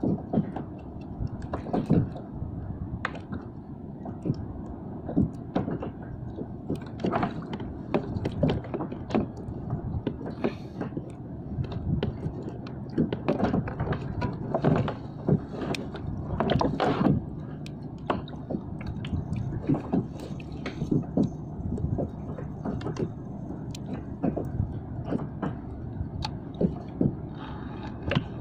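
Water lapping and slapping against a fishing kayak's hull, with irregular knocks and clicks from fishing tackle being handled in the boat.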